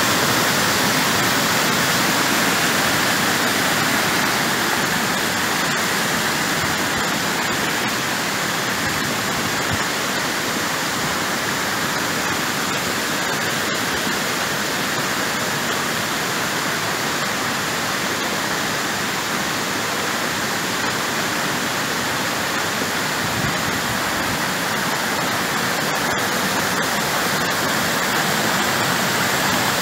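Muddy rainwater torrent rushing and cascading over rocks: a loud, steady rush of water, a little softer through the middle.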